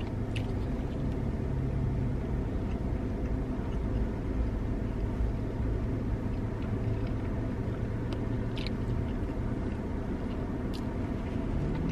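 Car engine idling, a steady low hum heard from inside the cabin, with a few faint ticks.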